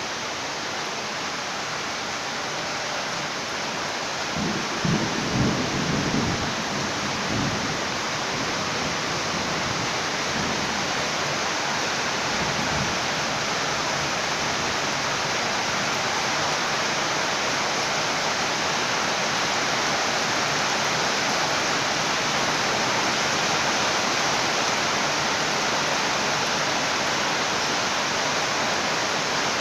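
Steady rain, with a low rumble of thunder about five seconds in and fainter rumbles a few seconds later.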